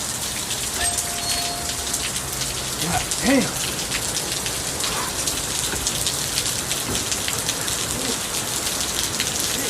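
Heavy rain falling steadily, a dense hiss of drops. A short voice sound is heard about three seconds in.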